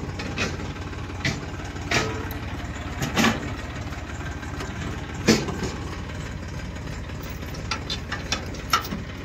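Tractor engine idling steadily, with several sharp metal clanks as the trailer hitch pin and its chain are worked into the drawbar, the loudest about five seconds in.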